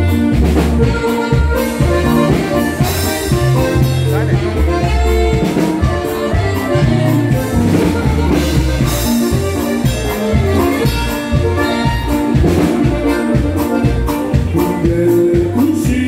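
Live norteño band with saxophone playing a corrido through PA speakers: bass and drums keeping a steady beat under the sax melody, with singing.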